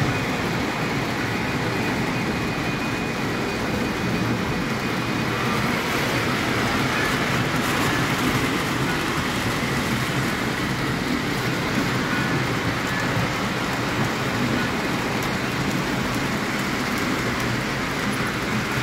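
Lionel model trains running around the layout's track: a steady, even rolling rumble that keeps on without a break.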